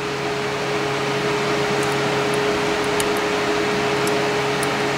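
A steady machine hum with a constant low tone over an even hiss, like a room fan or air conditioner running, with a few faint light ticks near the middle and end.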